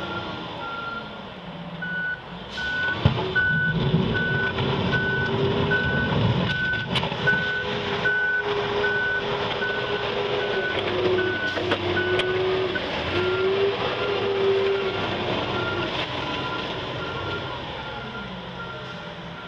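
Taylor GT 210 forklift engine working a snow plow blade, its pitch rising and falling as the machine pushes and backs through the snow, with a backup alarm beeping steadily over it. A sharp knock comes about three seconds in.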